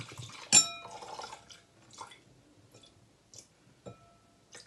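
Gin poured from a bottle into an empty balloon gin glass: the liquid splashes and drips into the glass, and about half a second in the glass gives one sharp ringing clink. A few lighter clinks and drips follow.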